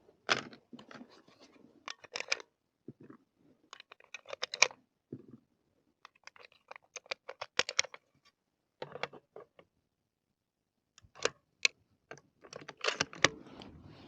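Irregular clicks, crunches and rustles of gear being handled close to the microphone, in scattered bursts with short quiet gaps.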